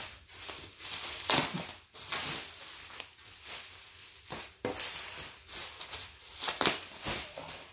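Plastic bubble wrap crinkling and rustling as it is pulled off a skateboard deck, in irregular bursts with several sharp crackles.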